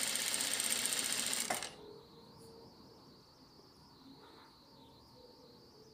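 Industrial single-needle sewing machine running at speed as it stitches two layers of cotton mask fabric, stopping suddenly about a second and a half in. After that only a faint steady high whine remains.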